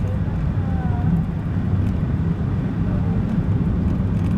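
Car driving along at a steady pace: a continuous low rumble of engine and tyre noise.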